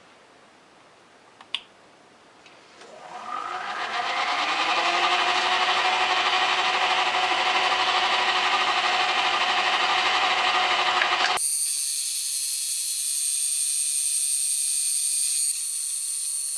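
Lathe motor starting about three seconds in, its whine rising over a couple of seconds as it comes up to speed, then running steadily, driving the cutter in the chuck under power feed. Near the end the lower part of the sound cuts out abruptly, leaving only a high hiss and whine.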